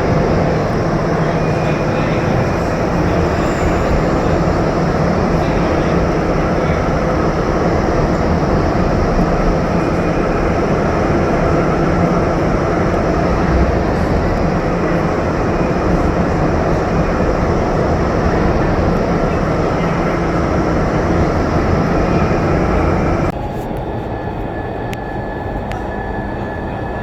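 Indoor skydiving vertical wind tunnel running: a loud, steady rush of air from the tunnel's fans with fixed humming tones under it. About 23 seconds in it drops suddenly in level and loses its high hiss.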